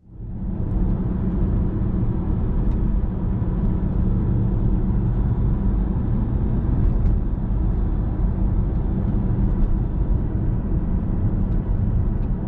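BMW E60 M5 on the move, heard from inside the cabin: a steady low road and engine rumble. This is a test drive to check for the sunroof wind deflector clonk, and no loud clonk stands out.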